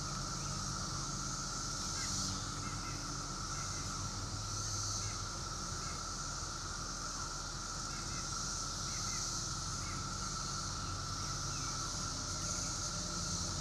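Outdoor chorus of 17-year periodical cicadas, a steady droning with a higher hiss-like band that swells and fades, with short bird chirps scattered over it.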